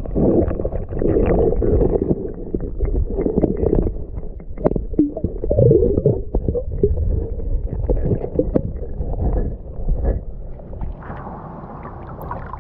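Muffled underwater sloshing and gurgling in a shallow river, with many knocks and scrapes as a gloved hand works a glass bottle loose from the rocks around a submerged camera. About eleven seconds in the sound opens up and thins as the camera comes up out of the water.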